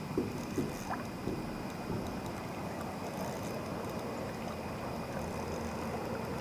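Steady rush of a small river's flowing water, with a few short splashes or clicks in the first two seconds.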